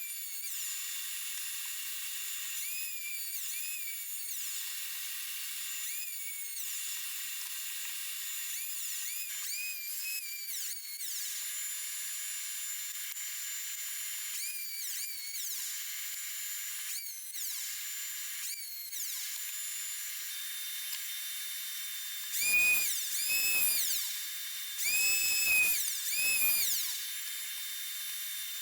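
Electric hand planer running with a steady high whine, its pitch dipping and recovering over and over as passes are taken along the wooden 2x3 pieces. The passes grow louder and fuller about three quarters of the way in.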